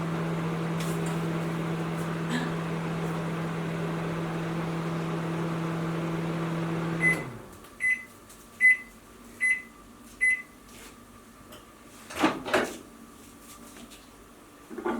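Panasonic NN-ST45KW inverter microwave running with a steady hum and fan noise, stopping about seven seconds in at the end of its one-minute cook. Five evenly spaced high beeps signal that the cook is done, followed by a couple of clunks.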